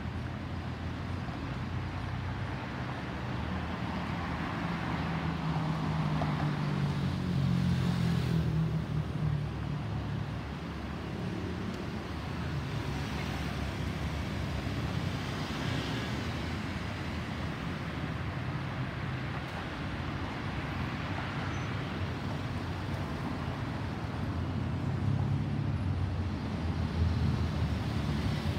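Distant steady rumble of an Airbus A320's CFM56 jet engines passing overhead, swelling slightly twice, mixed with road traffic.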